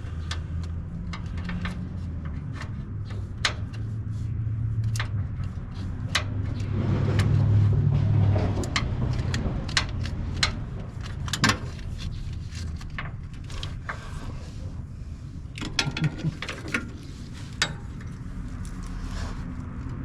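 Hand tools clinking and knocking against metal as a wrench and socket are worked at the starter's mounting bolts, a series of irregular sharp clinks. Under them runs a steady low rumble that swells about seven seconds in.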